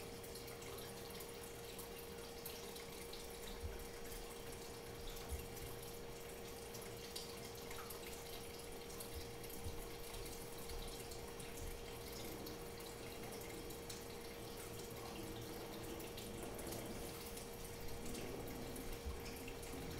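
Steady hiss with a constant mid-pitched hum and scattered faint clicks: background noise with no distinct event.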